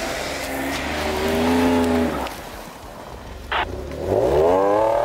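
Jeep Wrangler's engine revving hard as it sits stuck in deep snow with its wheels spinning: the revs climb and drop off about two seconds in, then surge up and fall away again near the end.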